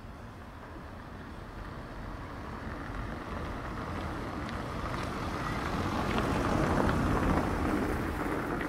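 A motor vehicle approaching along the street: its engine and tyre noise grows steadily louder and is loudest about seven seconds in as it draws close, easing slightly after.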